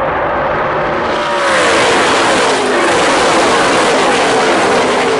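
A pack of NASCAR Camping World Truck Series race trucks passing close by, their V8 engines running hard. The sound swells about a second and a half in, and several engine notes slide down in pitch as the trucks go by.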